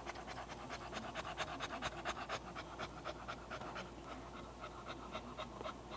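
English bulldog panting heavily in a fast, even rhythm of several short breaths a second.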